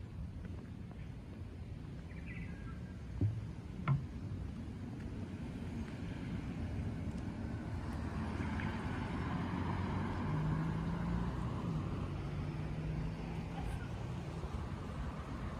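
A road vehicle passing, its rumble swelling to a peak about two-thirds in and then fading. Two brief knocks sound about three and four seconds in.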